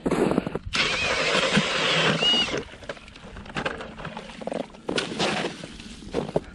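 Cordless drill turning an ice auger bit through pond ice: a loud grinding run with a faint whining motor pitch that stops about two and a half seconds in. Scattered knocks and scrapes follow.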